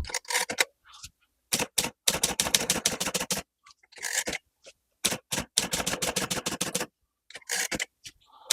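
Klein Continental portable typewriter being typed on: quick runs of sharp key strikes on the platen, with short pauses between bursts.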